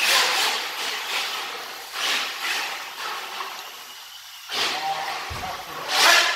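RC truck running in bursts of throttle: a hissing noise of motor and spinning tyres that surges and fades several times.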